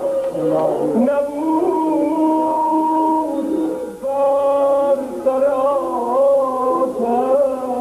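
Yarsan (Ahl-e Haqq) sacred devotional chant: singing in long held, ornamented notes, in two phrases with a short break about four seconds in.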